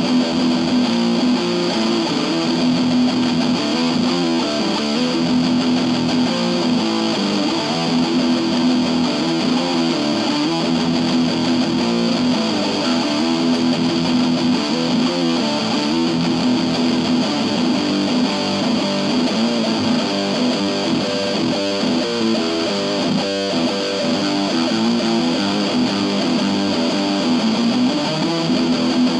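IYV Thinline Telecaster-style electric guitar played through an Orange Crush 20 combo amp: a continuous passage of sustained, ringing notes and chords with no breaks.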